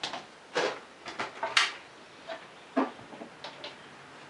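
Handling noise as something is picked up and moved: about five sharp knocks and clicks spread over the first three seconds, the loudest about one and a half seconds in, then quiet.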